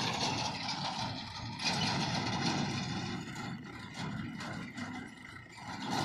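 Mahindra 475 DI tractor's diesel engine running as it pulls a loaded trolley, louder in the first half and easing off after about three seconds.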